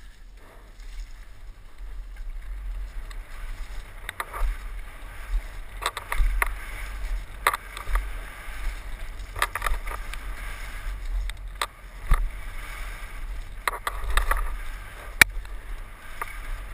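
Wind rumbling on a helmet camera's microphone as a mountain bike is ridden fast down a dirt trail, with tyre hiss on the dirt and irregular sharp clatters and knocks from the bike over bumps.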